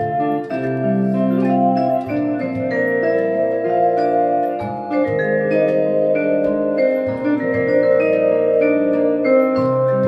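Jazz ensemble playing: a vibraphone struck with mallets, its notes ringing on, over a low line from a double-neck electric guitar, with hand percussion on a clay pot drum.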